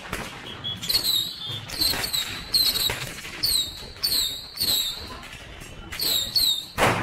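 Firecrackers going off in an irregular string of sharp cracks, about two or three a second.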